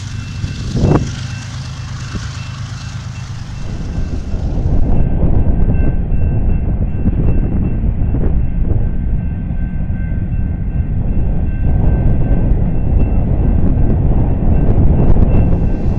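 Double-stack intermodal container train rolling past: a steady, loud rumble of steel wheels on rail and the well cars, with one sharp knock about a second in. The rumble grows louder about four seconds in.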